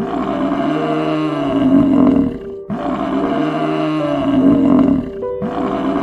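African buffalo bellowing: three long, rough calls of about two and a half seconds each, each rising and then falling in pitch. Background music with sustained tones plays under them.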